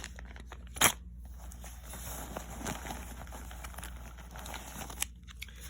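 Keys and small gear being handled: one sharp click about a second in, then faint rustling and a few light taps.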